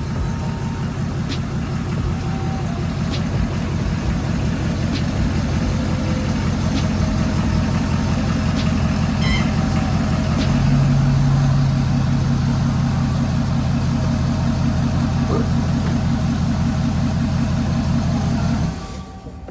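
Pickup truck engine idling with a steady, even pulse. About halfway through it gets somewhat louder and a steady hum joins it. Near the end the sound drops off sharply.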